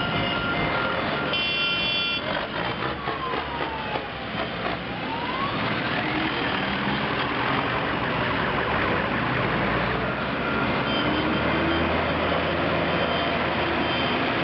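Farm tractors driving past in a procession, their diesel engines running steadily and building louder near the end as one passes close. A short horn blast comes about a second in, then a siren-like wail falls and rises a few seconds in.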